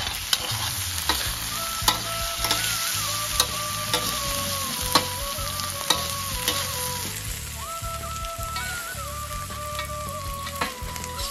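Food frying and sizzling steadily, with frequent sharp clicks and scrapes from a utensil being stirred through it. A simple melody steps along faintly in the background.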